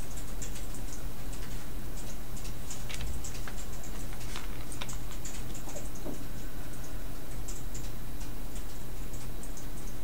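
Computer keyboard typing: scattered, irregular light key clicks over a steady low electrical hum.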